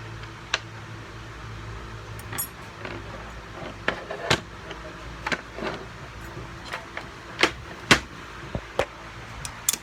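Irregular sharp metal clicks and knocks of turbocharger parts and tools being handled, about a dozen spread over several seconds, over a steady low hum like a fan.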